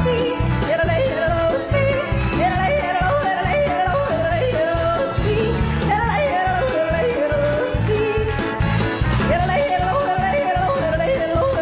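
A young girl yodeling, her voice flipping quickly back and forth between low and high notes, over an instrumental backing with a steady beat.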